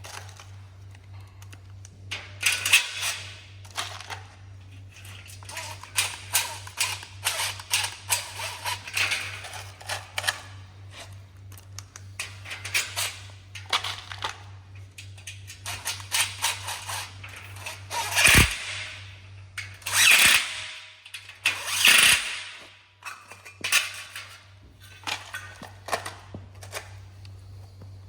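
Irregular clicks, knocks and rattles of greenhouse frame parts being handled and fitted together, with a few longer, louder scraping noises near the end and a steady low hum underneath.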